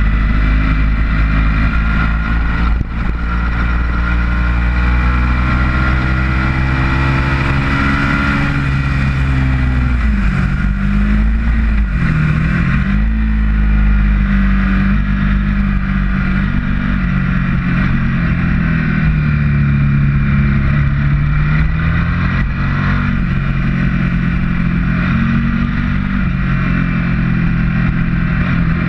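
Ducati motorcycle's V-twin engine at track speed, picked up by an onboard camera with wind rushing over the microphone. The engine pitch climbs steadily under acceleration, drops and recovers twice around ten to twelve seconds in as the bike slows for a corner, then rises and falls gently through the rest.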